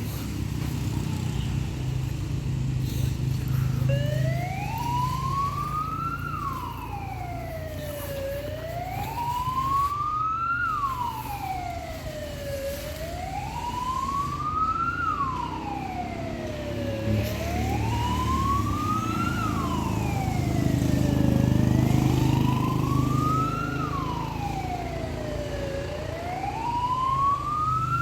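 A wailing siren comes in about four seconds in, rising and falling slowly, once every four seconds or so, over a low engine rumble.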